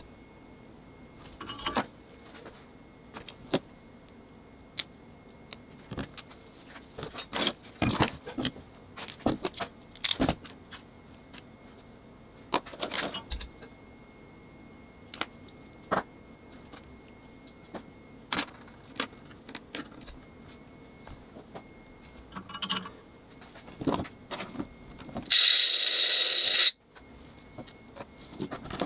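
Small metal parts and tools clicking, clinking and scraping as a lightsaber hilt is taken apart, in irregular bursts. About 25 seconds in, a loud buzzing sound with a high tone lasts about a second and a half and then cuts off suddenly.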